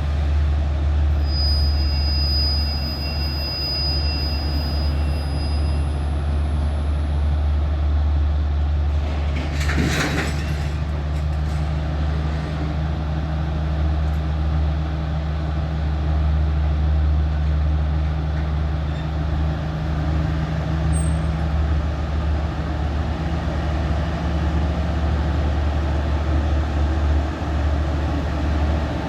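Alsthom diesel-electric locomotive engine running steadily with a deep hum. About ten seconds in comes a short burst of hissing air from the brake system.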